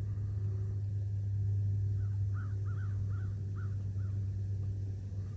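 A crow cawing in a quick series of short calls, starting about two seconds in, over a steady low hum.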